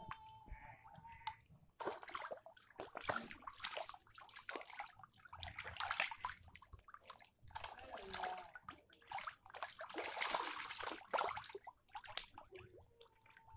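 Catfish splashing and churning the surface of shallow tank water in irregular bursts as they snatch at a biscuit held at the waterline.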